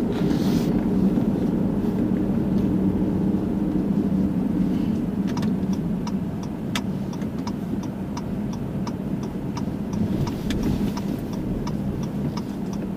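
Car driving, heard from inside the cabin: steady engine and road rumble. From about five seconds in, a turn-signal indicator clicks about three times a second, as the car nears a turn into the community's main entrance.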